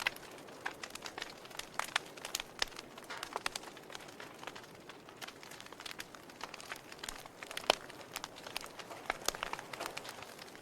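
Wood fire crackling in a fireplace: irregular sharp pops and snaps over a soft hiss, with one louder pop about three-quarters of the way through.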